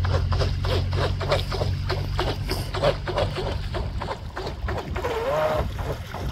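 Pro Boat Sonicwake radio-controlled electric speedboat running fast and carving across choppy water, its hull slapping the waves in a quick run of short hits.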